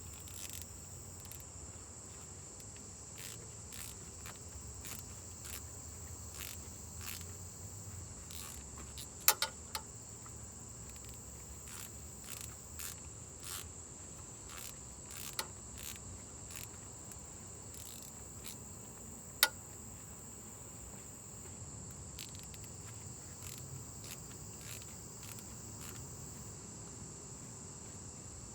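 Crickets trilling steadily and unbroken, with a scatter of sharp clicks and taps, the loudest a pair about nine seconds in and a single one about nineteen seconds in.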